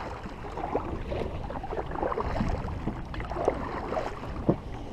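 A sit-on-top kayak being paddled: paddle blades dipping and splashing in the water with a steady wash of water along the hull. A few sharper splashes stand out near the end.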